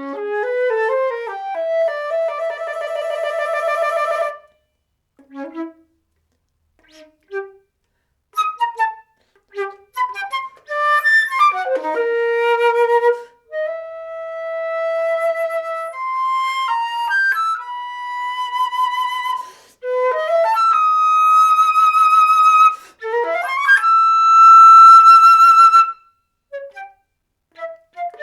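Solo flute playing a contemporary piece: a quick rising run into a long note with vibrato, then scattered short notes separated by silences, then fast runs and held notes climbing to the loudest, high held note near the end.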